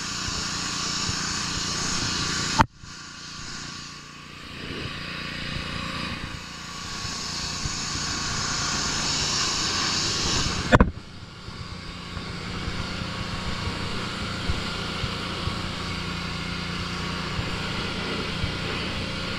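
Pressure washer running, with a steady low motor hum under the hiss of its water jet spraying onto wooden steps and deck boards. The sound breaks off abruptly with a click twice, about 3 s and 11 s in, and the hiss is weaker after the second break.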